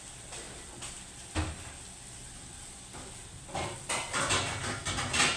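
Wooden spatula scraping and knocking against a small frying pan, breaking up scrambled eggs over a steady sizzle. One knock comes about a second and a half in, and the scraping turns louder and busier in the last two seconds.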